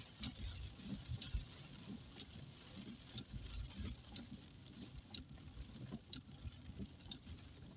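Irregular patter and ticking of rain striking the car, heard from inside the cabin over the low rumble of the car driving on a wet road.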